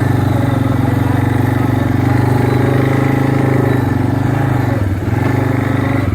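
A motor engine running steadily, with a brief drop in level about five seconds in.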